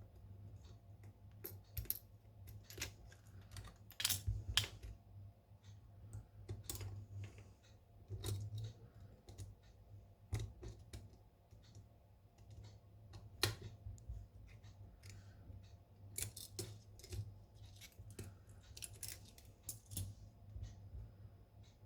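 Small hand tools clicking, tapping and scraping irregularly against a phone and the work surface, over a low steady hum.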